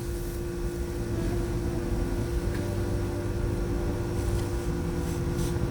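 A steady low droning hum with one constant tone, like a motor running.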